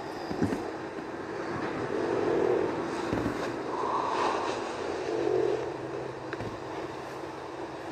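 A sleeping person snoring, a rough, noisy breath swelling and fading every second or two.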